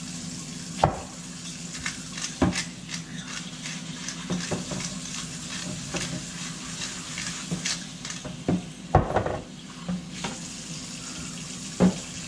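Kitchen washing-up and food handling: a cutting board being scrubbed and handled in a stainless steel sink while raw chicken wings are tossed in a plastic bowl. There are about five sharp knocks, the loudest about nine seconds in, over a steady low hum.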